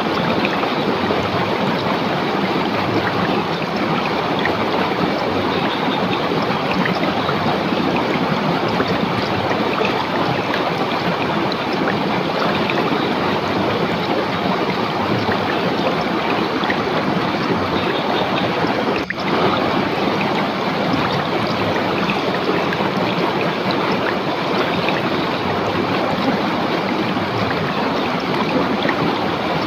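River water rushing steadily over rocks, a constant even splashing flow, with a brief dip in level about two-thirds of the way through.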